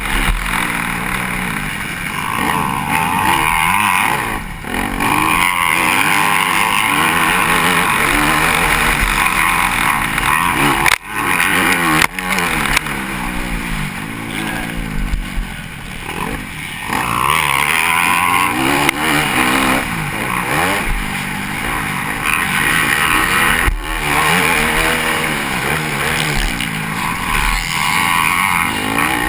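Dirt bike engine revving hard and easing off again and again as the rider works the throttle through the track, heard from a helmet-mounted camera. The engine sound cuts out sharply for a moment twice, about 11 and 12 seconds in.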